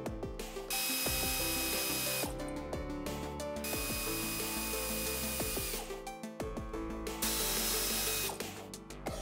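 Power tool running in three short spurts, each starting and stopping abruptly, backing out water pump mounting bolts, over soft background music.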